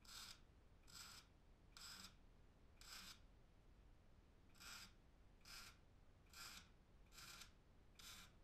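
Faint rasping strokes of a hand tool, about one a second with a short pause midway, each stroke brief.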